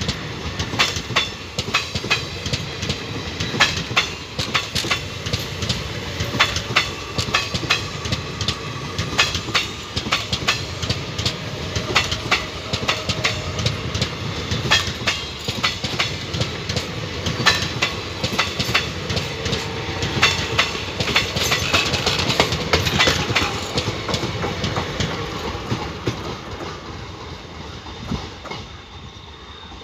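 Passenger train of ICF coaches rolling past, wheels clattering over rail joints in a steady clickety-clack with many sharp clicks. The clatter fades over the last few seconds as the end of the train moves away.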